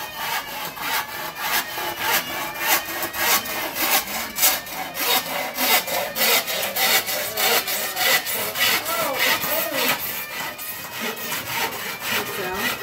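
Hand saw cutting through a green bamboo pole in quick, even back-and-forth strokes.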